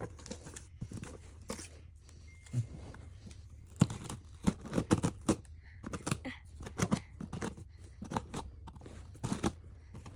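Scissors snipping and a shipping package being cut and torn open: a run of irregular clicks, snaps and rustles, busiest in the second half.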